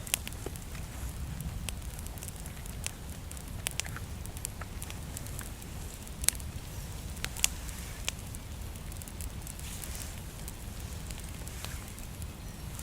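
Small campfire of dry grass and twigs, freshly lit from a single match, crackling with scattered sharp pops, the loudest about six and seven and a half seconds in, over a low steady rumble.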